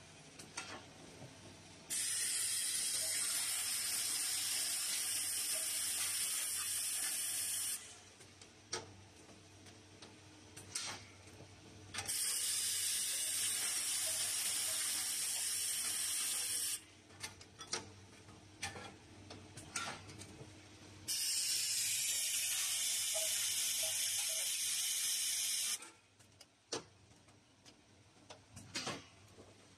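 Compressed-air blowing on an automatic bagging machine, hissing loudly in three spells of about five seconds each, roughly nine seconds apart. Sharp mechanical clicks and ticks from the machine fill the gaps.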